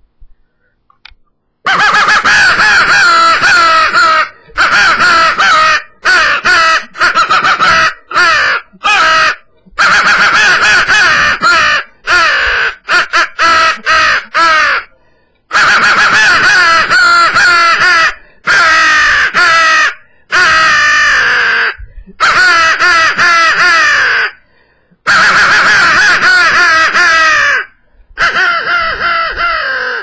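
Mouth-blown crow call worked in a long, nearly continuous run of rapid, raspy caws, imitating a fighting or excited crow. The calling starts after a short pause and stops only briefly for breath every few seconds.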